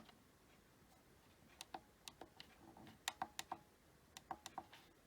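Faint, sharp clicks of buttons being pressed on a La Crosse W85947 weather alert radio, a dozen or so presses in short irregular runs starting about a second and a half in.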